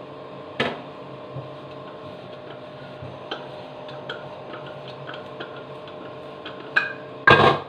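Handling noises from a plastic kitchen exhaust-fan cover and its grease-soaked filter pad: scattered light clicks and taps, a sharper knock about half a second in, and a louder, noisy scrape or knock near the end. A steady low hum runs underneath.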